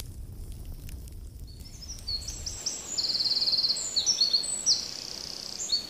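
A songbird singing loud, high, fast trills and short warbled phrases, starting about two seconds in and cutting off abruptly at the end. Under the first couple of seconds there is a low rumble that then drops away.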